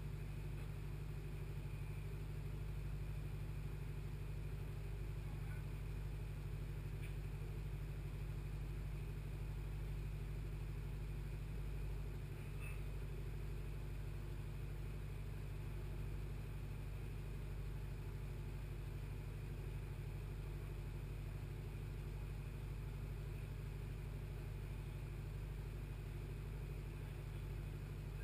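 Steady low drone of a work vessel's engines and machinery, heard on deck, unchanging throughout.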